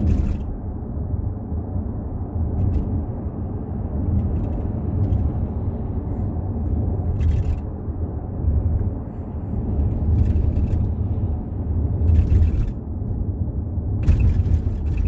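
Volkswagen Touareg III cabin on the move: steady low road rumble, with short creaks from the panoramic roof every few seconds, about six of them, the longest near the end. The roof has started creaking at 15,000 km.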